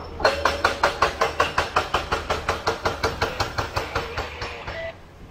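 Rapid, evenly spaced sharp knocking, about five knocks a second, fading gradually and stopping shortly before the end.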